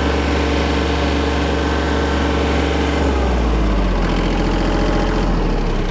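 Kubota compact tractor's diesel engine running hard under load as the gear-drive tractor pulls against a chained load cell. About three seconds in, the engine pitch drops as it lugs down under the pull.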